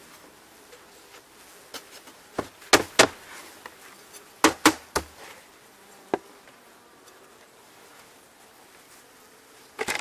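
Several sharp knocks as the wooden feeder board is rapped to shake clinging honey bees back down into the hive, in two quick groups of three and then a single one. Under them, the faint buzz of the honey bee colony in the opened hive.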